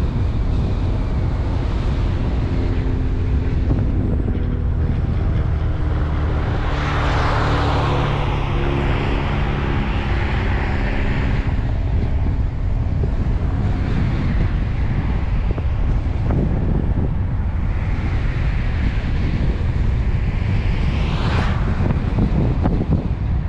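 A car driving along the road: steady engine hum and road rumble under wind buffeting the microphone. Two brief swells of louder noise come through, about seven seconds in and again near the end.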